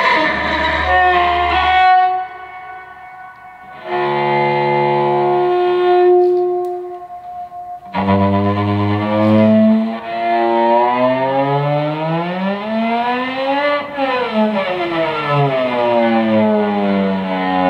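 Electric cello played with a bow: a few notes, then a held note that rings on and fades. From about eight seconds in, a long slow slide up in pitch and back down again.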